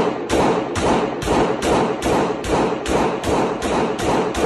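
A rapid series of pistol shots, most likely a Glock 17 firing 9 mm rounds, evenly spaced at about two shots a second, each with a short ringing tail. The last shot comes near the end and its echo dies away.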